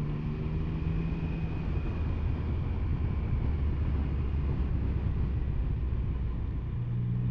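Triumph Sprint 1050's three-cylinder engine on the move, its note dropping over the first couple of seconds as the throttle eases, sitting low, then picking up again near the end. A steady rushing noise runs underneath.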